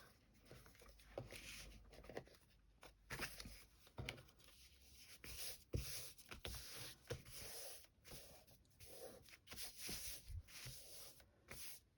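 Faint rustling of fabric and paper being handled and pressed down onto a glued paper-bag journal cover, with a few soft taps.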